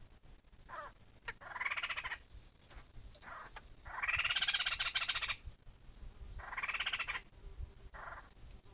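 Laughingthrush calling: a series of harsh, rapidly pulsed notes that rise and fall in pitch. Three long calls stand out, the middle one longest and loudest, with shorter, quieter notes between them.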